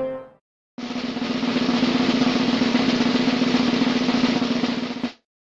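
Snare drum roll, a sound effect, starting about a second in, swelling slightly, then cutting off suddenly near the end.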